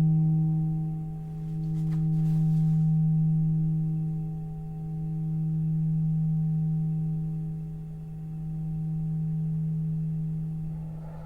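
Titanium alchemy singing bowl ringing on a steady low tone, with slow beating swells roughly every three and a half seconds.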